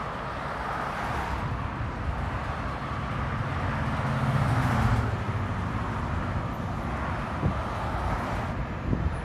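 Outdoor traffic ambience: a steady wash of road noise with a low rumble that swells about four to five seconds in.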